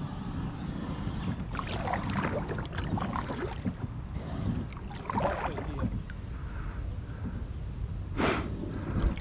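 Kayak paddle strokes, the blade swishing and splashing in the water several times at uneven intervals, over a steady low rumble of wind on the microphone.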